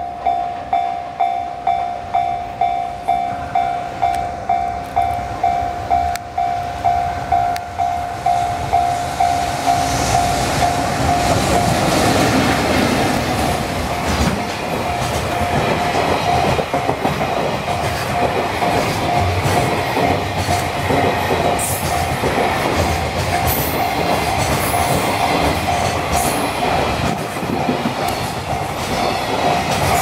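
Omron electronic level-crossing alarm ringing in steady pulses about twice a second as a container freight train hauled by an EF65 electric locomotive approaches. From about ten seconds in, the train's wheels and wagons rumble and clack past close by, and the alarm keeps ringing beneath them.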